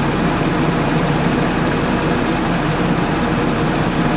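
Armored military vehicle's engine idling steadily, a constant low hum with no change.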